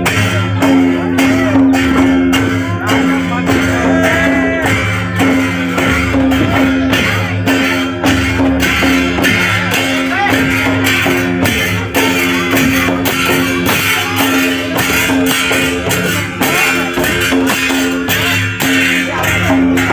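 Karma folk dance music: hand-beaten double-headed barrel drums playing a quick, even rhythm over a steady held drone tone.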